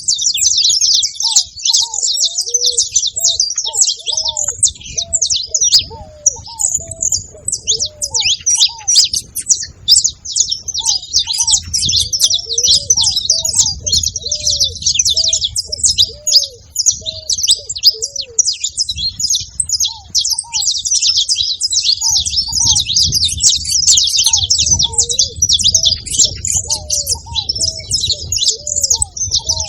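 Several saffron finches chirping and singing together in a dense, continuous jumble of high trills and chirps. Runs of short, lower, arched calls from another bird recur through it in several bouts.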